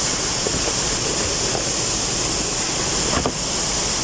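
Steady rushing noise with no distinct events, and one faint brief knock about three seconds in.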